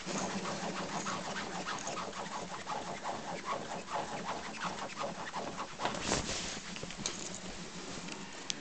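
Bedding rustling and scratching as a kitten scrambles about on a duvet: a run of short scuffs and scrapes, with a louder rustle about six seconds in and a sharp click near the end.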